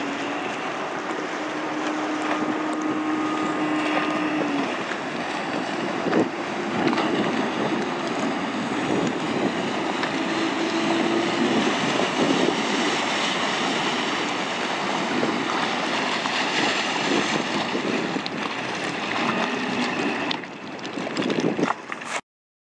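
Addictor 245 mini speedboat's engine running at speed across open water, with one steady engine note at first, then rougher and mixed with wind on the microphone and water noise as the boat comes closer. The sound cuts off abruptly near the end.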